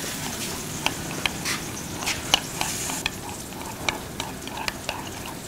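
Spoon stirring melted garlic-and-herb butter in a bowl, with scattered sharp clinks and scrapes of the spoon against the bowl over a steady hiss.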